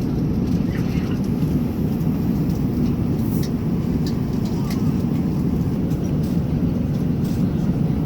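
Steady low rumble of engine and airflow noise inside a Boeing 787-9 airliner cabin, with a few faint clicks.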